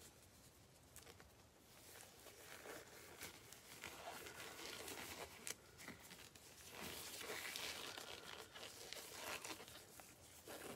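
Faint crinkling and rustling of packaging being handled, with some tearing, in irregular spells that grow loudest past the middle.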